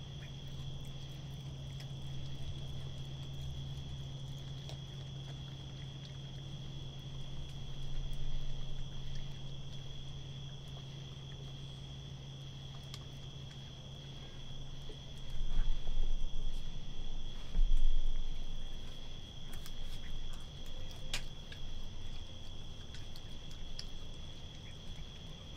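A raccoon chewing, crunching through chicken bones in scattered soft cracks, over a steady high trill of crickets. A low hum stops about halfway through, and a few dull low thumps come around the middle, the loudest sounds here.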